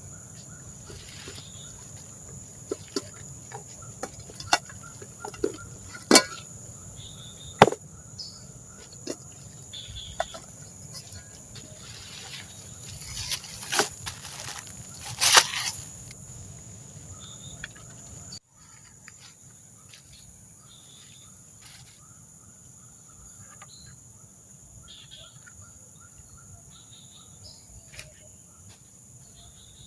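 Steady high-pitched insect chorus of crickets buzzing, with scattered sharp knocks and clatter through the first half. About two-thirds of the way in the sound drops suddenly to a quieter chorus.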